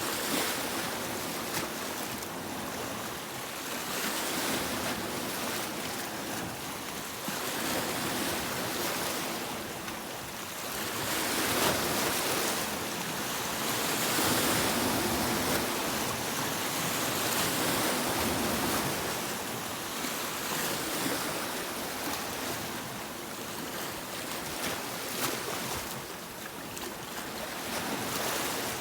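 Sea waves breaking and washing on a beach, the surf swelling and easing every several seconds, loudest about halfway through.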